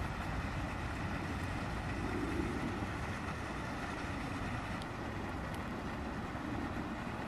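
Steady outdoor background rumble with a hiss, with no distinct events and a slight swell about two seconds in.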